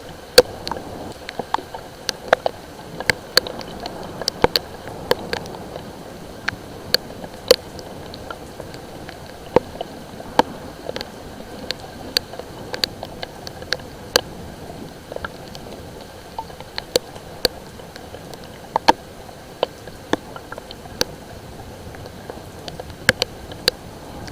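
Light rain, with drops falling irregularly onto a hard surface close by as sharp ticks, a few a second, over a steady hiss.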